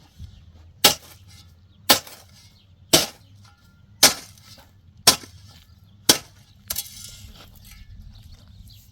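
Six sharp knocks, evenly spaced about a second apart, like a tool striking a hard surface, followed by a brief scraping rattle.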